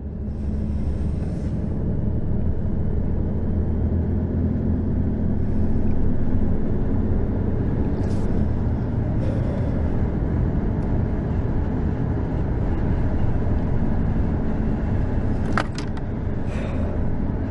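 Steady engine and road noise inside the cabin of a moving car, a low drone with a couple of brief clicks near the end.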